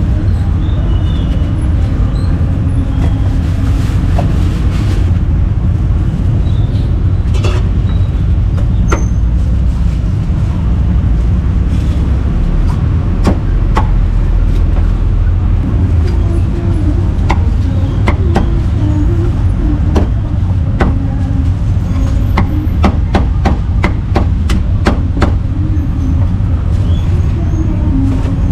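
Meat cleaver chopping roasted meat on a wooden chopping block: scattered single chops, then a quick run of chops near the end. A steady low traffic rumble runs underneath.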